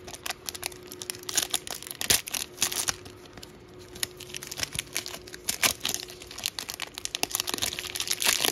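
Foil wrapper of a trading-card pack crinkling and tearing as it is handled and opened, a dense run of sharp crackles.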